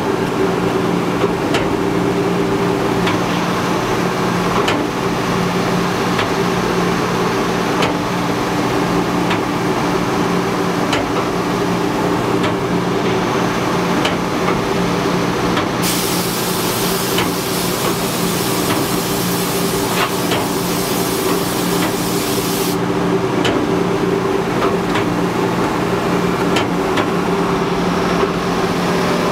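Wide belt sander running with a steady hum. About 16 s in, a hiss of compressed air from an air blow gun starts and lasts about seven seconds before cutting off.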